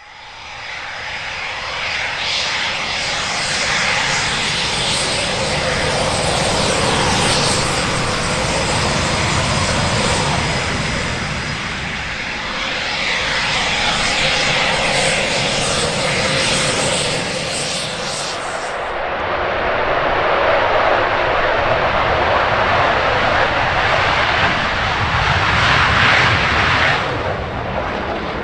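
Loud, sustained aircraft engine noise from a military aircraft, a dense rushing roar that swells and eases several times, with a sudden change in tone, the top end dropping away, about two-thirds of the way through.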